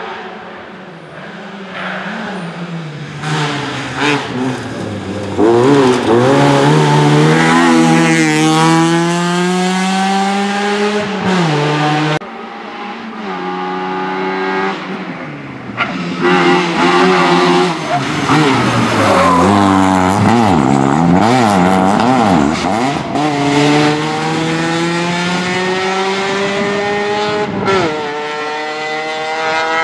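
Opel Astra rally car's engine revving hard as it accelerates, its pitch climbing and dropping back again and again through the gear changes. The sound breaks off abruptly about twelve seconds in and again near the end, where the car lifts off the throttle.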